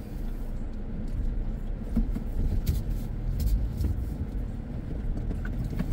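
Vehicle heard from inside the cabin, moving slowly on a rough dirt road while turning around: a low rumble of engine and tyres with scattered short knocks and crunches from the wheels.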